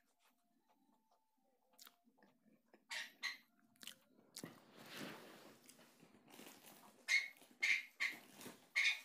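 Gathered dress fabric rustling and swishing as it is handled, laid out and smoothed by hand on a tiled floor: quiet at first, then short scrunching rustles, with a quick run of five sharper swishes near the end.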